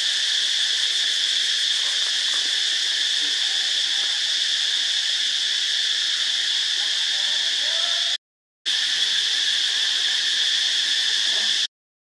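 Steady, high-pitched drone of insects in the forest, unbroken apart from a brief dropout about eight seconds in.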